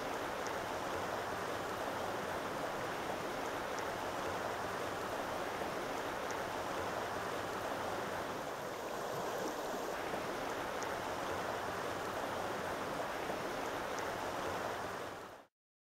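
Creek running over a shallow, rippling bed, a steady rush of water that fades out near the end.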